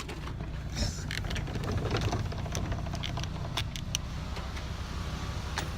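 Vehicle engine running at a steady idle, with scattered clicks and knocks over it.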